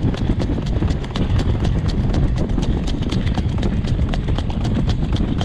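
Hooves of a harness horse pulling a jog cart at a trot on a gravel road, beating in a steady, even rhythm of sharp clops. A steady low rumble runs underneath.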